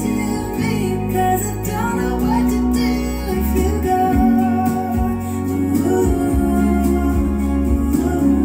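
Background music: a song with singing over guitar.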